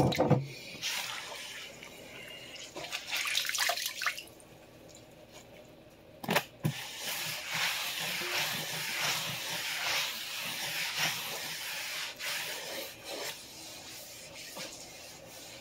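Cloth towel rubbing over a wet tiled countertop as it is wiped dry, an uneven scrubbing hiss, with a sharp knock near the start and another about six seconds in.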